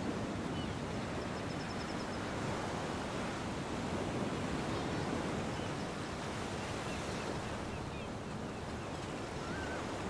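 Ocean surf washing steadily onto a beach, an even rushing with no distinct breaks, with a few faint high chirps now and then.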